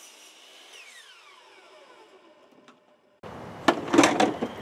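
Electric miter saw motor spinning down after cutting 3-inch PVC pipe, its whine falling in pitch over about two seconds. After a short gap, a run of loud knocks and clatter near the end.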